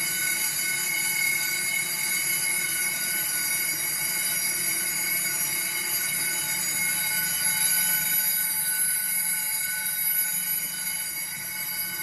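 Fire alarm bells ringing steadily as the system goes into alarm during testing, a dense metallic ring with strong high overtones that eases off slightly near the end.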